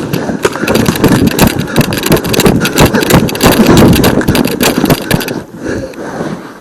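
Magfed paintball pistols firing in rapid succession, a dense run of sharp shots over a heavy rumble of movement noise; the firing stops about five seconds in.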